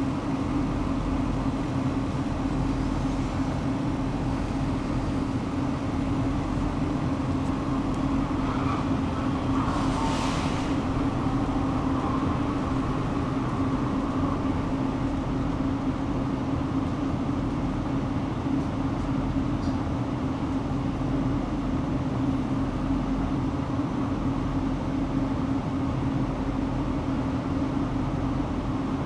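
Tram running along its track: a steady motor hum over the rumble of wheels on rails, with a brief hiss and a rising squeal about ten seconds in.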